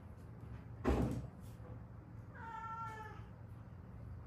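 A domestic cat meows once, a single call just under a second long, about two and a half seconds in. About a second in there is a dull bump, the loudest sound here.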